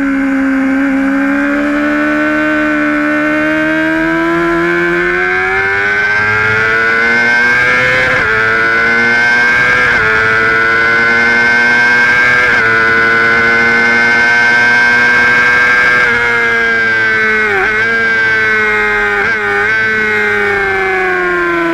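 Honda sportbike engine, heard from on board, accelerating hard down a straight with its pitch climbing and a few brief breaks at gear changes. It then rolls off, with two quick dips at downshifts near the end as it slows for a corner.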